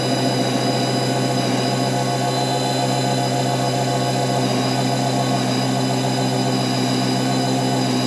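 Mini lathe running steadily under power, a constant motor and gear hum with a whine above it, as the cutting tool puts a chamfer on the inner edge of a bored ring.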